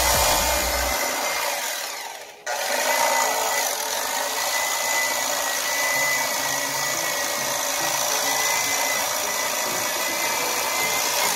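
Electric fillet knife running, its motor whining steadily as the reciprocating blades cut along a jack crevalle's backbone. It stops for a moment about two and a half seconds in, then starts again and runs steadily to near the end.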